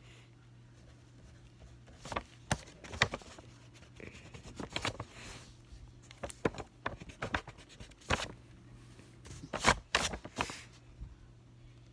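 Irregular scratches, taps and clicks of a pen working on paper, with the paper being handled, loudest in two clusters, around two to three seconds in and again near ten seconds. A faint steady low hum lies underneath.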